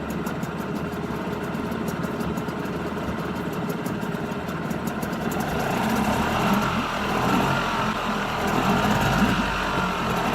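Nissan 5 hp two-stroke outboard motor running with its fuel shut off, living on the fuel left in it. About halfway through, its even, fast running turns louder and rougher.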